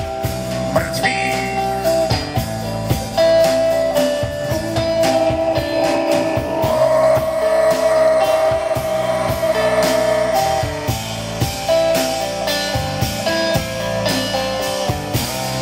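Live band playing a bluesy instrumental passage on electric guitars, bass and drum kit, with a harmonica playing long, bending held notes over them, loudest around the middle.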